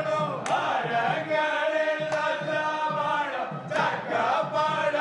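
A group of voices chanting together to a steady beat.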